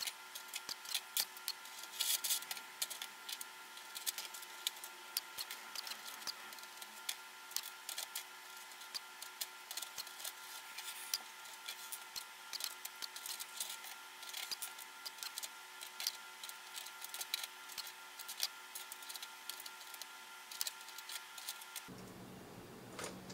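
Many small irregular clicks and taps as small rollers are picked up and set one by one into a 3D-printed roller-bearing race, in alternating directions, over a faint steady whine.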